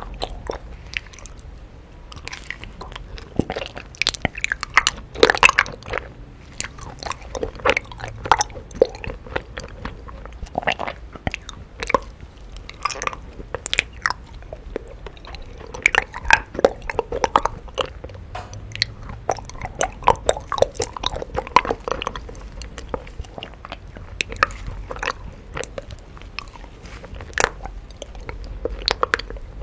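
A person biting into and chewing raw honeycomb, with irregular crunchy crackles as the wax comb is broken up.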